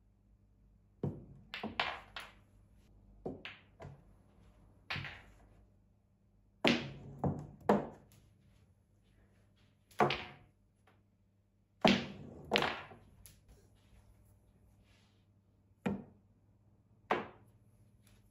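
Snooker balls on a small home snooker table: a string of about fifteen sharp clacks and knocks, some in quick pairs, from the cue tip striking the cue ball, balls colliding, and balls hitting the cushions.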